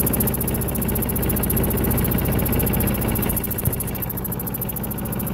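Walk-behind lawn mower's small engine running steadily, fuelled by wood gas fed through a hose straight into its carburetor instead of gasoline.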